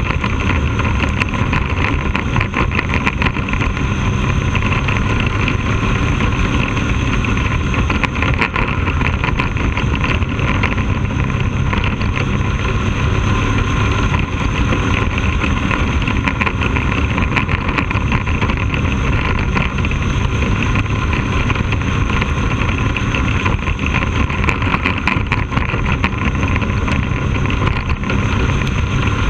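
Onboard sound of a Bandolero race car's small single-cylinder Briggs & Stratton engine running hard at steady high revs while lapping the oval.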